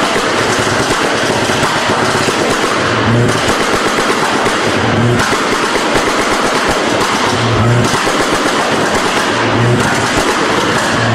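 A tuned car's exhaust popping and banging in a rapid, unbroken string, the crackle of unburnt fuel igniting in the exhaust under an ignition-cut launch limiter or anti-lag system. A deeper low pulse comes through about every two seconds.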